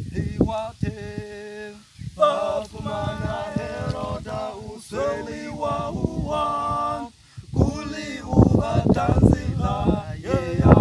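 Small male vocal group singing a gospel song a cappella, several voices holding notes together in harmony, in phrases with short breaths between them.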